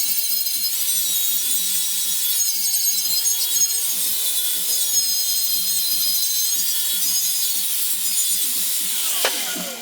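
Angle grinder cutting into steel box bar, a steady grinding hiss with a high whine. Near the end it is switched off and the disc winds down in a falling whine.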